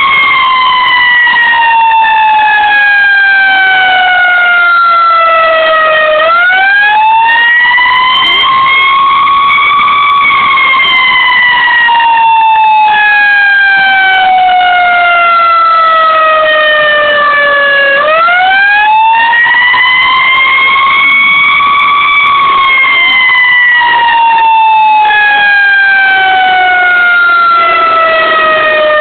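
Fire engine siren sounding a slow wail: a quick rise in pitch twice, each followed by a long, slow fall.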